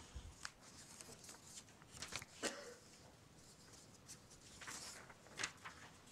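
Near silence: room tone, with a few faint scattered rustles and taps, the most noticeable about two seconds in.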